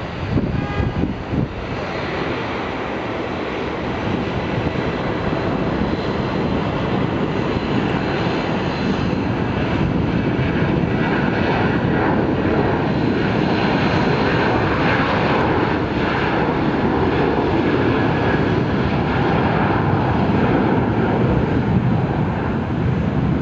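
Boeing 737-800's two CFM56-7B turbofan engines at takeoff power during the takeoff roll: a steady jet noise that grows gradually louder as the airliner accelerates down the runway.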